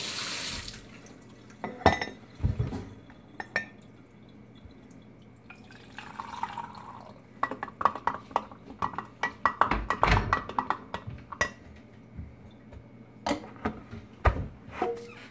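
Kitchen tea-making sounds: a running tap cuts off just after the start, then a few knocks on the counter. About six seconds in, hot water is poured from a glass electric kettle into a ceramic mug, followed by a few seconds of quick clinking as it is stirred. A few more knocks near the end as a tea tin and a cupboard are handled.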